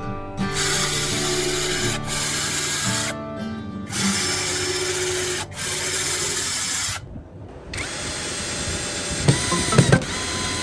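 A small power tool's motor running in stretches, with its pitch shifting, cut off briefly twice. About two seconds before the end comes a cluster of sharp clicks and knocks.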